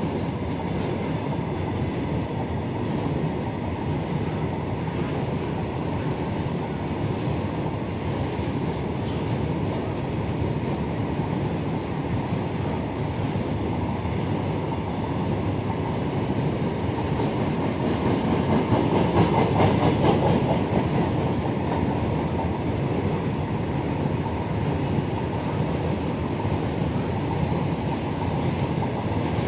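Oil tank wagons of a long freight train rolling past on the rails: a steady rumble and rattle of wheels and bogies, swelling louder for a few seconds about two-thirds of the way through.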